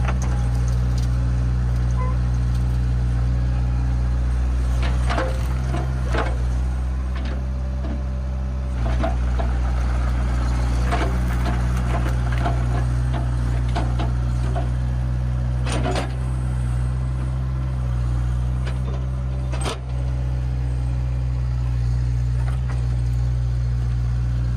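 Kubota mini excavator's diesel engine running steadily under hydraulic work, with a handful of sharp knocks and clunks as the bucket and thumb work at a stump.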